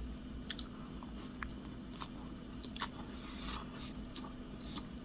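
Quiet chewing of a doughnut, with scattered small mouth clicks and smacks over a faint steady hum.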